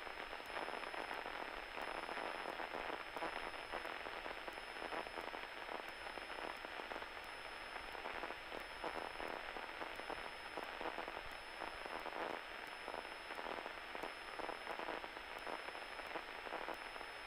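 Faint, steady hiss and crackle of static on an aircraft's headset and radio audio feed, with a thin high-pitched whine behind it.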